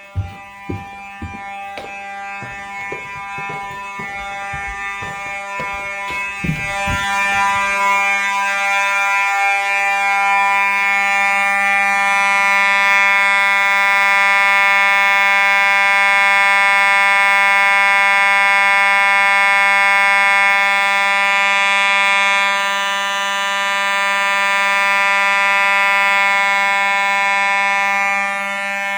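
Fire alarm sounding continuously during a system test: a loud, steady tone that doesn't pulse or change pitch. It grows louder over the first eight seconds, with knocks and thumps underneath, then holds steady.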